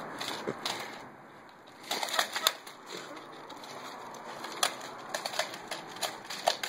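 A Doberman playing with a yellow chicken squeak toy: scattered sharp clicks and scuffs of its claws on concrete, with soft bird-like squeaks from the toy as it is mouthed and shaken. It goes quieter for a moment about a second in.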